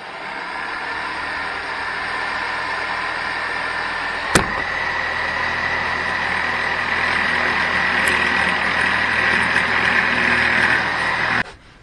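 Electric jigsaw with a plastic-cutting blade running and cutting through a sheet of cast acrylic: a steady buzz with a high whine that grows stronger as the cut goes on, then stops suddenly near the end. A single sharp knock about four seconds in.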